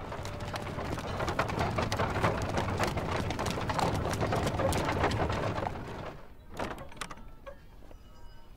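Horse-drawn carriage moving over stone paving: a dense clatter of hooves and wheels over a low rumble. It cuts off about six seconds in, followed by a few faint knocks.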